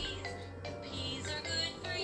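Background music: a light melody of held notes, some of them wavering high notes, over steady low notes.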